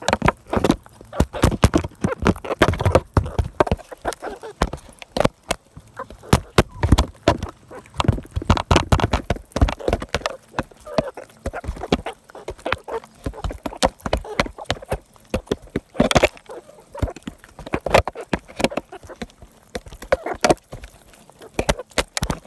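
Chickens pecking at cake right at the microphone: rapid, irregular sharp taps and knocks of beaks, with a few short clucks among them.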